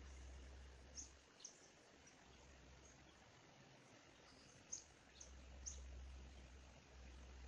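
Quiet forest ambience: a bird giving scattered short, high chirps, about five single notes, over a faint low rumble.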